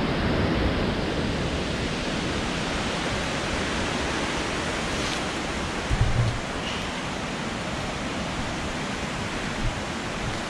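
Steady rushing of a nearby waterfall, an even roar of falling water. A brief low thump about six seconds in.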